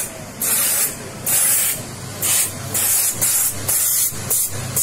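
Handheld steam nozzle of a Bieffe Scarpavapor steam cleaning machine spraying in short, repeated bursts of hiss, about two a second, as it is worked over a leather motorcycle suit.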